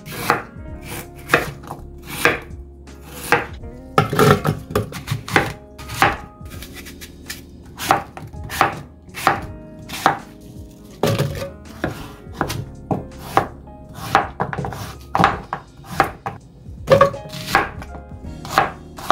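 Kitchen knife chopping on a cutting board: sharp separate strokes at an uneven pace, mostly one or two a second, some in quick runs of several.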